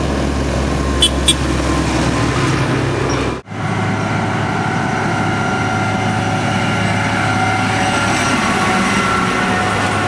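New Holland T7050 tractor pulling a trailer drives past, its engine running steadily with a deep hum, and two sharp clicks about a second in. After a sudden cut, a New Holland L624 combine harvester drives past, its engine running steadily with a whine above the drone.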